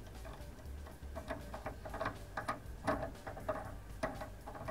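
Faint background music made of short, ticking, plucked notes at an uneven pace.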